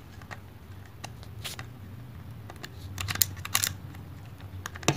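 Handling noise from a Canon EOS M100 mirrorless camera: scattered small plastic clicks and scrapes as a battery is fitted into its base compartment, with a cluster of clicks about three seconds in and a sharp click near the end.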